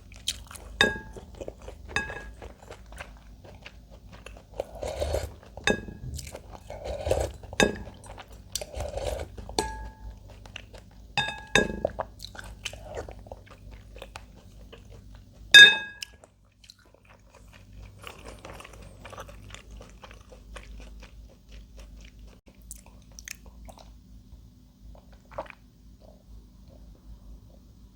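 Close-miked chewing and crunching of food, in a ramen and kimchi meal, with a string of short ringing clinks from utensils against dishes. The loudest clink comes about 16 seconds in, and the eating grows quieter after it.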